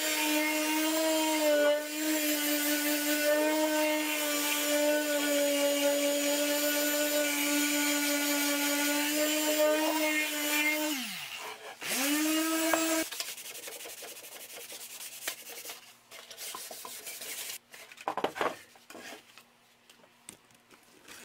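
Electric sander running steadily with a high hum, sanding the wooden rack. About 11 s in it winds down with falling pitch, runs again for a moment and is switched off; after that only faint knocks and handling sounds.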